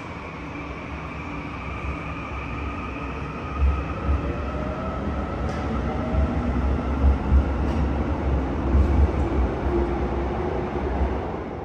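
Korail Class 321000 electric multiple unit pulling out of an underground platform, its traction motors whining in several tones that rise in pitch as it speeds up. Heavy low rumbling and thuds from the running gear build from a few seconds in.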